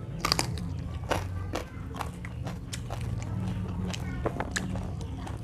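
Close-miked eating of a raw lalapan meal: biting and chewing with many sharp, irregular crunches, several a second.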